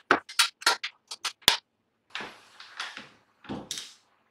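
Hands working the lid of a metal toolbox and pulling a cable out of it: a quick run of sharp clicks and taps in the first second and a half, then scraping and rustling with a dull thump about three and a half seconds in.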